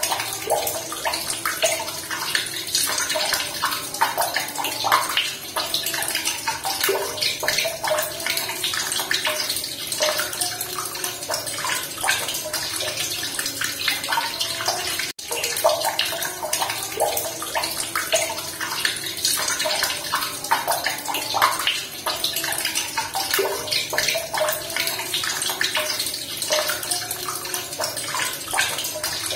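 Running water splashing and bubbling steadily, with a brief gap about fifteen seconds in.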